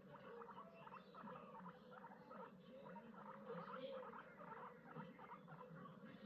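Guinea pigs chewing and rustling hay: a faint, quick, uneven run of small crunches and rustles.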